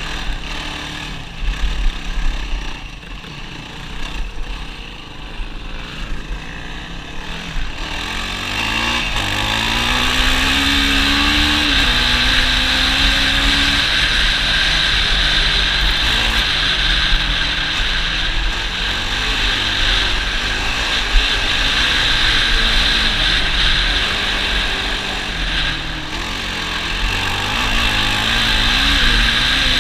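ATV engine running while riding, quieter at first with a few knocks, then louder from about a quarter of the way in, its pitch rising as it speeds up. A steady rushing noise sits over the engine for the rest of the ride.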